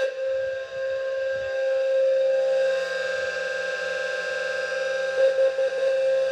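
Two fire alarm horns sounding together, a steady low-pitched electronic tone with a harsh buzzy edge. One horn, a Wheelock low-frequency sounder, pulses in code 4, the temporal pattern used for carbon-monoxide alarms. The other sounds continuously.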